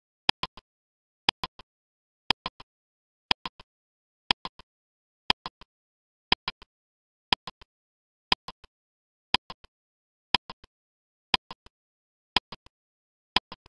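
Countdown-timer sound effect ticking once a second, each tick a sharp click followed by two or three quieter clicks.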